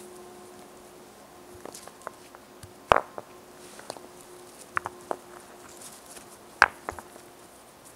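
Rounded stones clacking against one another as they are lifted and set into a fire-pit ring: a scattering of short, sharp knocks, the loudest about three seconds in and another a little past six and a half seconds.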